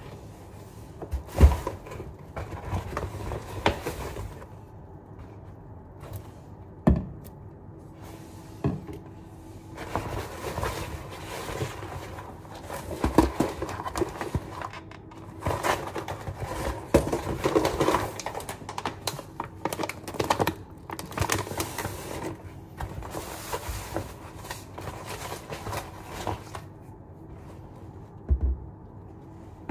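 Groceries being unpacked by hand from a shopping bag: packaging and the bag rustle, with several sharp knocks as items are picked up and set down, the loudest about a second in.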